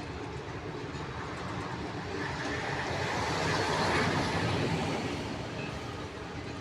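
TEM2 diesel shunting locomotive running past with its engine going, the sound growing to a peak about four seconds in and then fading.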